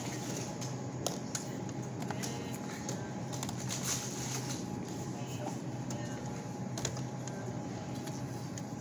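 Scattered clicks and light rattling of goods being handled at a checkout, over a steady low hum.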